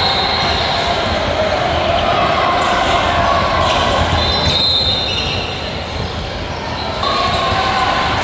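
Basketball game play: a ball bouncing on the court amid a steady din of voices.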